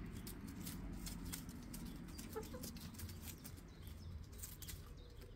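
Hens in a chicken coop, faint: one short soft cluck about halfway through, with scattered light clicks and scratching.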